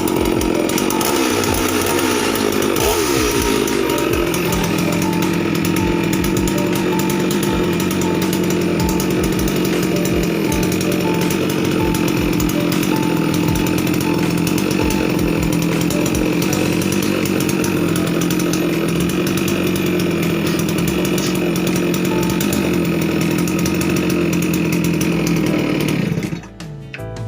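Two-stroke engine of a new Falcon FC 6800 chainsaw running during break-in. Its pitch shifts for the first few seconds, then holds steady until the engine drops away just before the end.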